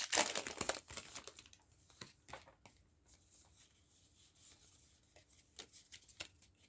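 Foil booster pack wrapper tearing and crinkling for about the first second, then faint scattered rustles and clicks as the wrapper and cards are handled, with a few more clicks near the end.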